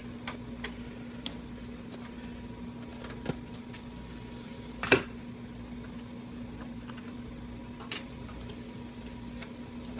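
Scattered light clicks and taps of computer parts and cables being handled, with one louder knock about five seconds in, over a steady low hum.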